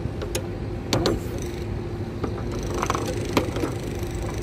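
Foosball table in play: several sharp clacks, irregularly spaced, as the plastic figures on the rods strike the ball. A steady hum runs underneath.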